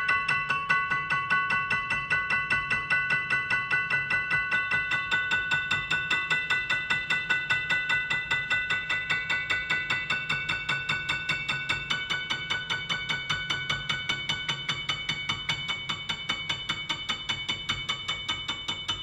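Background music: held chords over a steady, quick ticking beat, slowly fading out.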